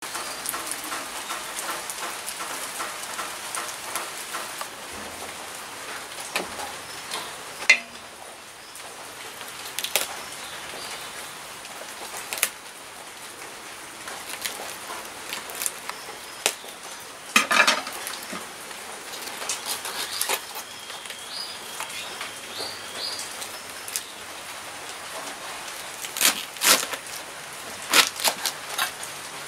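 Kitchen knife cutting a raw cabbage head on a wooden chopping board: separate sharp cuts and knocks at irregular intervals, over a steady hiss. A faint high chirping comes in about two-thirds of the way through.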